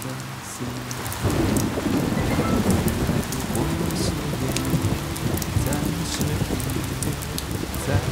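Rain falling, with a low rumble of thunder that comes in about a second in and carries on, over soft background music with a slow melody.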